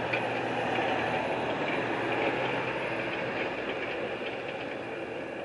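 Construction machinery running steadily, with a few faint clicks.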